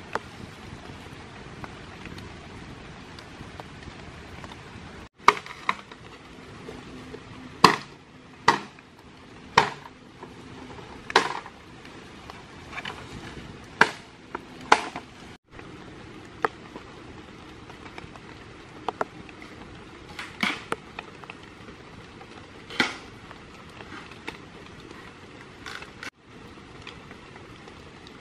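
Steady rain hiss with about a dozen sharp knocks of bamboo being handled and struck, bunched in the middle, some with a short hollow ring.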